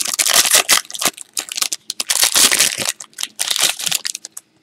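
Foil trading-card pack wrapper crinkling in quick irregular bursts as it is torn open and the card stack pulled out, stopping about four seconds in.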